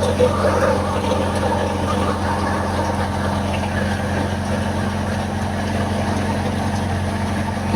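Wheat thresher running steadily at work, a constant mechanical drone with a low, even hum.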